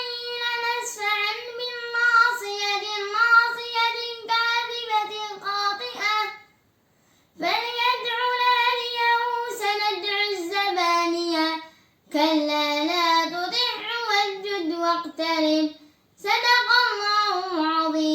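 A child's voice chanting Quranic recitation (tartil), unaccompanied, in four long melodic phrases with short pauses between verses.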